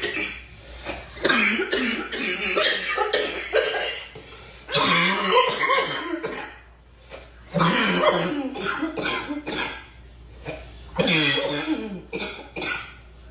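A girl coughing in fits: four bouts of several coughs each, with short pauses between them.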